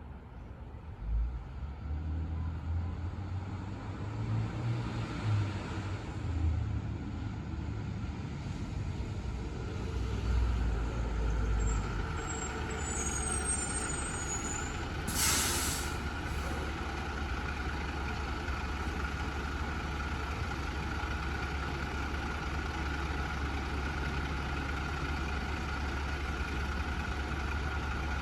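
Diesel engine of a Blue Bird International 3800 school bus running, uneven for the first dozen seconds and then steady as at idle. About halfway through there is one short hiss from the air brakes.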